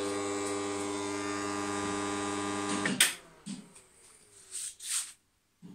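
Mains transformers of a bench power supply humming steadily, switched off with a sharp click about three seconds in. After the click a cooling fan's whine falls in pitch as it spins down, with a couple of brief rustles and a low thump near the end.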